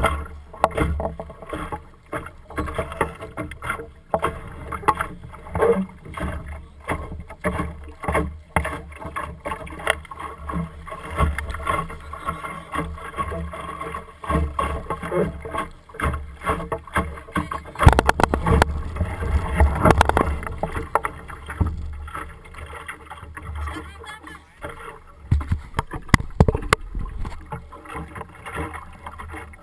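Water slapping and splashing against the hull of an Optimist sailing dinghy under way in choppy water, with wind rumbling on the microphone and frequent irregular knocks. The knocks and splashing are loudest about two-thirds of the way through.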